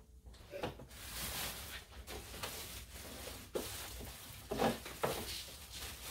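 Plastic packaging bag crinkling and rustling as it is handled around a pressure washer unit, with a few soft knocks, the loudest a little past halfway.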